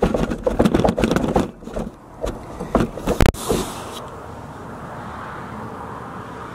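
Wheeled QSC speaker cabinets rattling and clattering as they are pushed over rough ground, then a single loud knock a little after three seconds in. A steady low hum follows.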